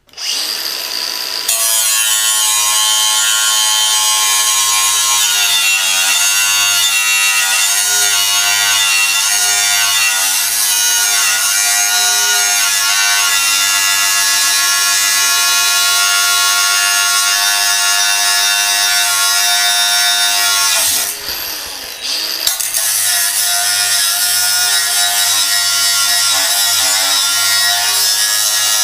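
Milwaukee cordless angle grinder with a cut-off wheel spinning up and cutting through steel plate, a steady high motor whine with the hiss of the wheel in the metal. About 21 seconds in it drops off briefly, then bites into the cut again.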